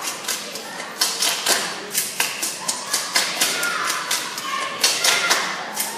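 Dancers stomping and clapping on a stage floor without music: a quick, uneven run of sharp hits, about three a second, with a few shouts from the audience.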